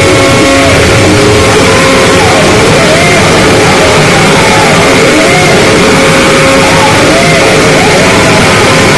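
Harsh noise music: a loud, unbroken wall of distorted noise with a steady held tone and squealing swoops of pitch that come back about once a second.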